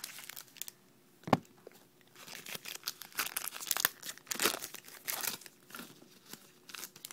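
A trading-card pack wrapper being torn open and crinkled by hand, a dense run of crackling from about two seconds in, after a single sharp snap about a second in.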